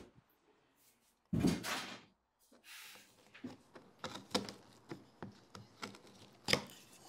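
A heavy wooden thud about a second and a half in, then a hand chisel paring along thin wooden strips in a run of short scraping strokes, one of them sharper and louder near the end.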